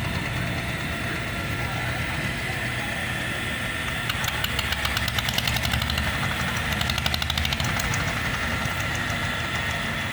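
A boat engine running with a steady low rumble, with a fast, even knocking that swells through the middle.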